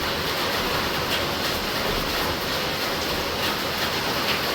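Heavy rain pouring steadily, the drops beating on plant leaves.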